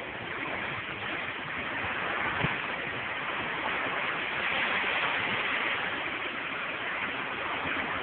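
Steady hissing wash of water, a little louder in the middle, with one brief thump about two and a half seconds in.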